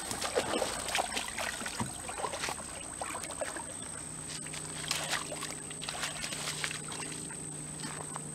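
Shallow pond water splashing and sloshing in irregular bursts as a hooked bass thrashes at the bank and a man wades in to land it by hand. A steady low hum comes in about four seconds in.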